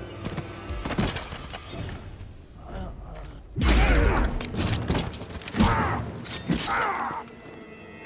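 Movie fight sound effects: a string of hard hits and metallic clashes, the heaviest and loudest about three and a half seconds in with a deep boom, and a man's yells between the blows.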